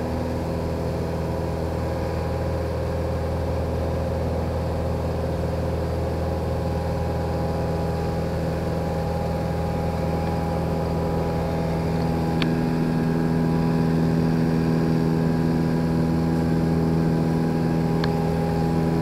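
Cessna 182G Skylane's six-cylinder Continental O-470 engine and propeller running steadily in flight, heard as a steady drone inside the cockpit. About twelve seconds in the tone shifts and gets slightly louder.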